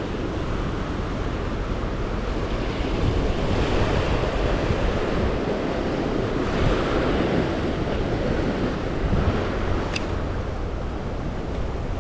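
Sea waves washing against rocks, swelling twice, with wind on the microphone; a single sharp click about ten seconds in.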